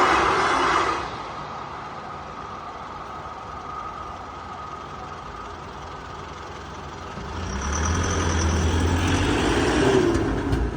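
Road traffic at a railway level crossing: a loud noise fades away about a second in, then a road vehicle with a heavy, low engine note drives past from about seven seconds in and fades near the end.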